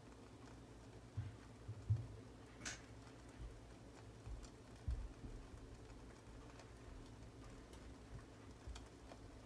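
Egg batter with onion and bell pepper cooking in a pan, giving faint scattered crackles and ticks with one sharper pop a few seconds in. A few soft low thumps sound under a low steady hum.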